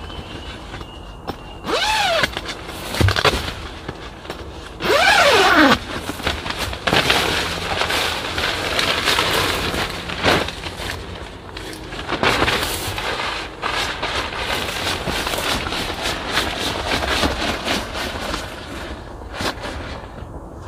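Tent door zipper pulled open in two quick strokes, each a whir that rises and falls in pitch, followed by a long stretch of rustling and crinkling of tent fabric and gear.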